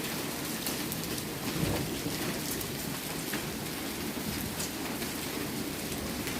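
Heavy downpour of rain mixed with hail: a steady hiss with many scattered sharp hits of drops and hailstones.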